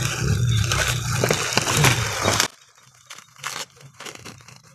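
Plastic packaging crinkling and rustling as it is handled, loud and noisy for about two and a half seconds, then cutting off abruptly to faint scattered crinkles and clicks.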